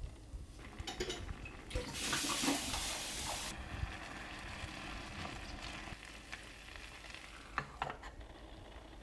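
Rice and broth bubbling and sizzling hard in a small cast-iron gamasot, a loud hiss that cuts off suddenly about three and a half seconds in. Then softer scraping and light clicks as chopsticks stir the cooked rice, and a couple of sharp clicks near the end as the pot is handled.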